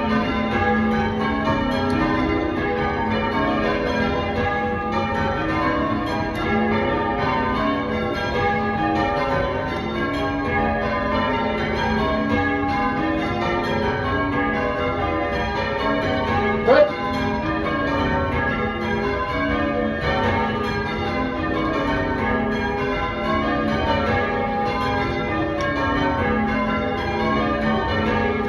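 Church bells being rung in changes, each bell striking in turn in a rapid, steady succession. About two-thirds of the way through, a brief loud rising sound cuts across the ringing.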